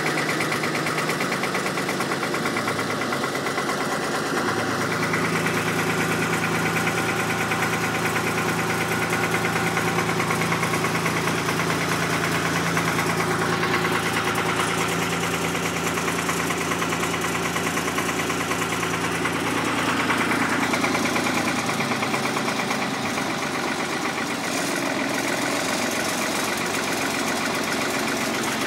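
Long 350 farm tractor's diesel engine running just after a cold start, with a knocking diesel clatter that a phone camera's microphone exaggerates. The engine speed picks up about five seconds in and settles back down a little over twenty seconds in.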